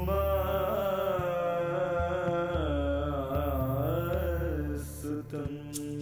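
A single voice chanting a mantra in one long, slowly bending melodic phrase over a low, pulsing drone; the voice stops about five seconds in and the drone continues.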